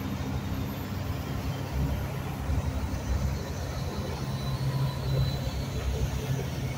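Marine engines running with a low, steady rumble as a landing-craft cargo vessel and the small boat on its line pass close by.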